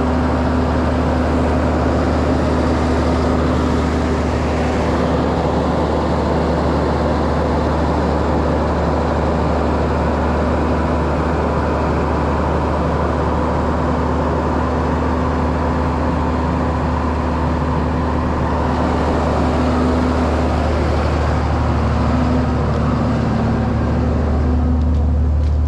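Tow truck's engine running steadily with a low, even hum, getting a little stronger near the end.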